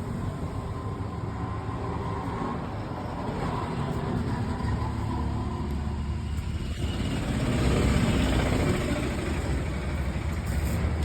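Steady low rumble of motor traffic, growing louder about eight seconds in.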